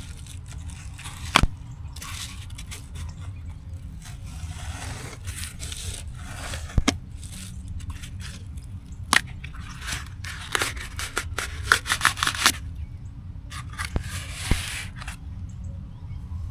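Pipe insulation being handled and wrapped around plumbing: irregular crinkling, tearing and scraping with scattered sharp clicks, over a steady low rumble.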